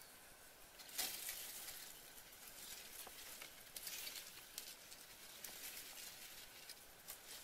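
Faint, irregular rustling and crunching of dry leaf litter under bare feet walking, the loudest crunch about a second in and another cluster around four seconds in.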